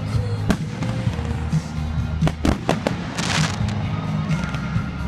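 Aerial firework shells bursting with sharp bangs: one about half a second in, then three close together between two and three seconds in, followed by a short hiss. Music plays underneath throughout.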